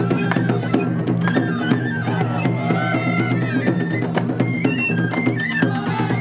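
Shishimai lion-dance festival music: dense, rapid taiko drum strikes under a high, wavering melody from a bamboo transverse flute.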